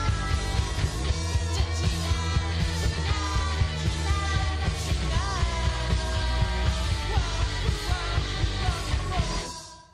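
Soundtrack music with singing over a heavy bass line and a steady beat, fading out quickly near the end.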